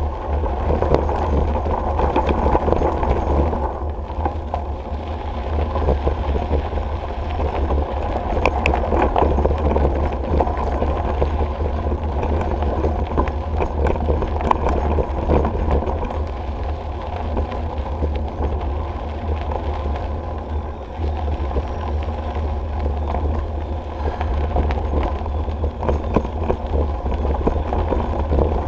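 Bicycle tyres rolling and crunching over a gravel trail, with many small clicks and rattles from the bike. A steady low rumble of wind runs under it on the bike-mounted camera's microphone.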